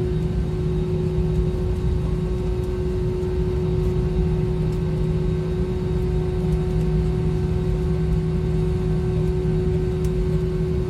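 Airliner engines at takeoff power heard from inside the passenger cabin: a steady loud roar with a deep rumble and a constant humming tone.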